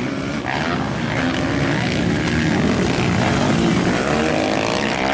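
Motocross bike engines running hard on the track, their pitch rising and falling as the riders rev and shift.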